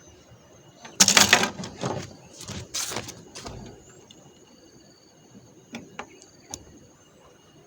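Handling noises: a loud burst of rustling and clattering about a second in, two shorter ones after it, then a few light clicks, over faint steady high-pitched tones.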